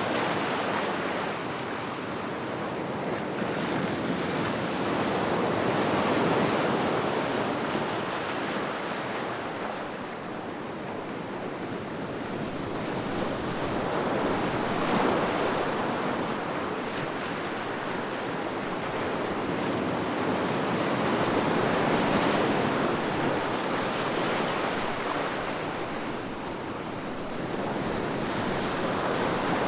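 Sea waves breaking and washing on a shore, a continuous surf rush that swells and ebbs in slow surges every several seconds.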